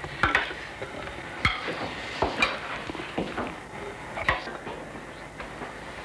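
Cutlery clinking and scraping against a plate or bowl: a handful of separate light clinks spread over a few seconds, over a faint steady hiss.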